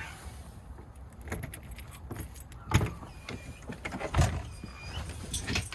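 A dog moving about with its collar tags jingling and rattling, with two dull thumps about three and four seconds in.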